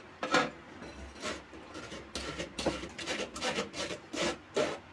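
Wet bel (wood apple) pulp being rubbed by hand against a stainless steel mesh sieve, a series of irregular scraping strokes about two a second, as the juice is pressed through and the fibres and seeds held back.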